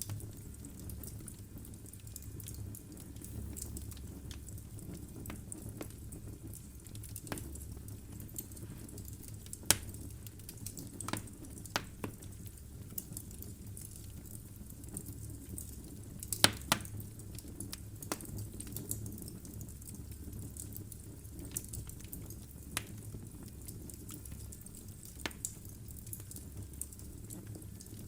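Wood logs burning in a fireplace: scattered sharp crackles and pops over a low, steady rumble of flame, with a loud pop about ten seconds in and a quick double pop a little past the middle.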